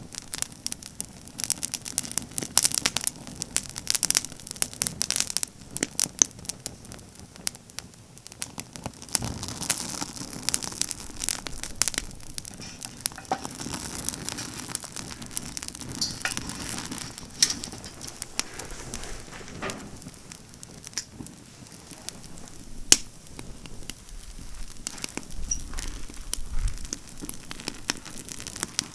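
Campfire of pine branches crackling, with a constant run of sharp pops and snaps. The pops come thickest in the first few seconds, and one loud pop lands about three-quarters of the way through.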